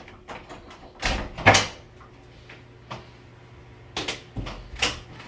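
A handful of separate sharp knocks and clicks at uneven intervals, the loudest a pair between one and one and a half seconds in, over a faint steady hum.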